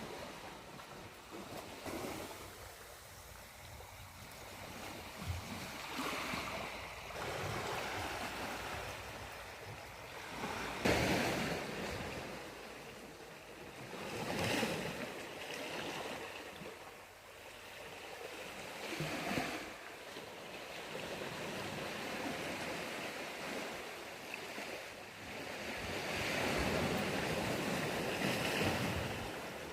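Sea waves breaking and washing up on the shore, the surf swelling and falling away every few seconds.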